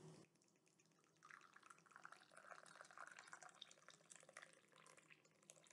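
Faint trickle of a hot drink poured from a stainless steel thermos into its metal cup, starting about a second in and trailing off near the end.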